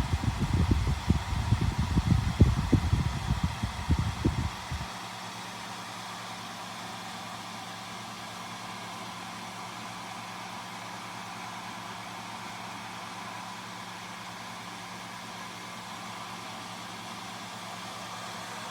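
ULTTY bladeless tower fan running. For the first four and a half seconds there is irregular low rumbling, which stops abruptly. After that comes a steady airy hiss with a faint hum.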